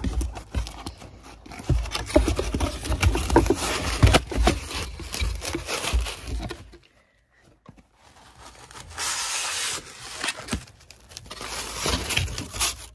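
Packaging being handled in a cardboard box: crinkling, scraping and rustling of cardboard, bubble wrap and polystyrene foam. There is a short pause a little past halfway, then a steady scrape lasting about a second and more crackling.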